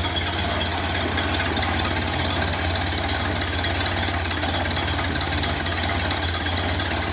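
1931 Ford Model A's four-cylinder flathead engine idling low and steady, with an even rapid pulse, running on freshly fitted points and condenser with the timing just set.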